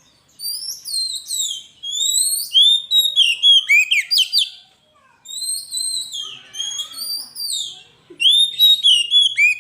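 Oriental magpie-robin (kacer) singing: rapid runs of clear, high, downward-sliding whistles in three bursts separated by short pauses.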